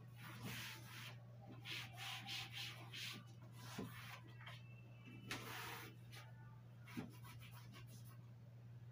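Cleaning cloth rubbing and wiping the shelves of a white shelving unit in irregular strokes, faint, with a few light knocks against the shelves, over a steady low hum.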